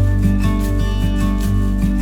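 Background music: gentle acoustic guitar strummed in a steady rhythm.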